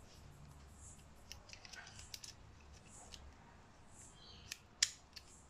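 Small plastic handling clicks and rubbing as a flat replacement battery is fitted against the plastic back frame of a ZTE MF910 pocket Wi-Fi modem, with two sharper clicks near the end, the second the loudest.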